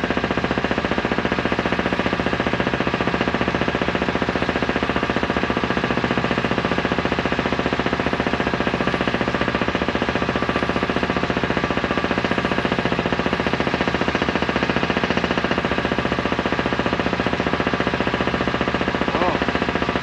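An engine running steadily at one speed, with a fast, even pulse.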